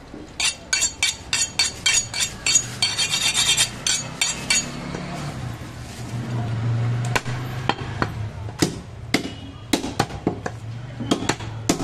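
Fast run of sharp metallic clinks of steel blades for the first four or so seconds, about four a second and then quicker. From about seven seconds in come separate heavy chops of a butcher's cleaver into a wooden chopping stump as a goat leg is jointed.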